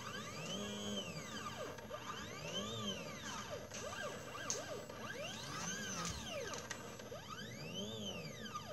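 Stepper motors of a mini CNC laser engraver whining as they drive the head along its lead screws. The pitch rises and falls in arcs every second or two as the head traces the curved outline of the pattern.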